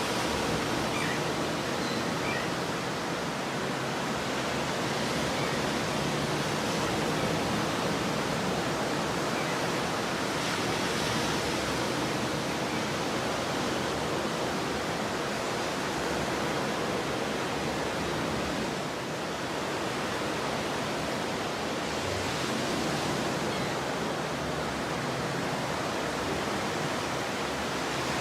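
Stormy ocean surf: a steady rushing wash of breaking waves, swelling slightly now and then.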